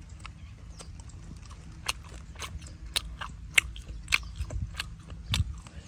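A boy chewing a whole grilled small crab close to the microphone, with sharp crunches roughly twice a second.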